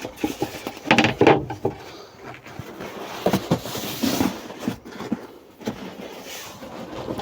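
Knocks and scraping of a plywood panel being handled and fitted into place, loudest about a second in.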